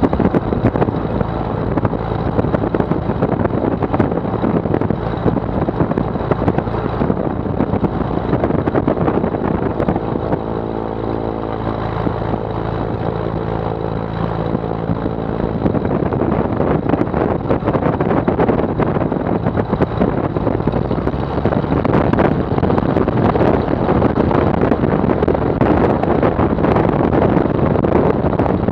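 The Maule M7-260 amphibian's six-cylinder Lycoming engine and propeller run steadily at taxi power. The noise grows somewhat louder about three-quarters of the way through.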